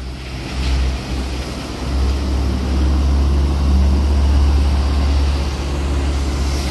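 Diesel engine of a Comil Campione 3.45 coach on a Mercedes-Benz O500 M chassis as it pulls away and drives slowly past, a low drone that builds to its loudest about four seconds in, with tyres swishing on wet pavement.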